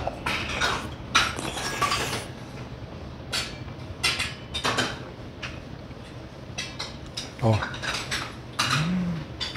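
Close-up eating sounds: a wooden spoon scraping and clinking against a stainless steel bowl of rice, with chewing between the spoonfuls. A brief hummed 'mm' comes near the end.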